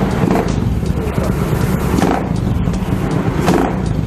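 Motorstar Cafe 400 motorcycle engine running, with the throttle blipped about every second and a half. It is being test-run on a fresh spark plug while its carburettor mixture is set too rich.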